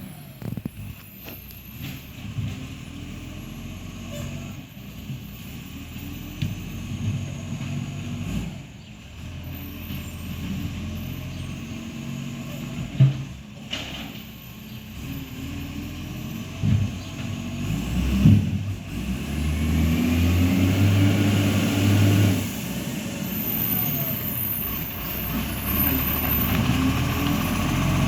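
Iveco ACCO garbage truck's diesel engine running, the truck having an exhaust leak. The engine gets louder and higher for a few seconds about two-thirds of the way through. Two short sharp sounds come about halfway through and again a few seconds later.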